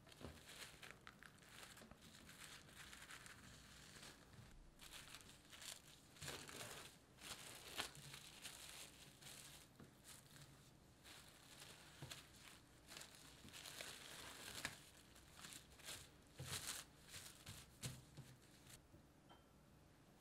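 Plastic cling wrap crinkling in quiet, irregular crackles as it is peeled back and opened out from a slab of cookie dough.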